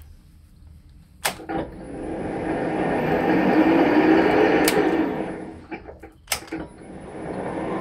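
A lathe's lever-operated drum switch clicks and the VFD-driven spindle motor and gearbox ramp up with a rising whine. After another click about five seconds in, they wind down, the switch clicks again, and they start ramping up once more near the end.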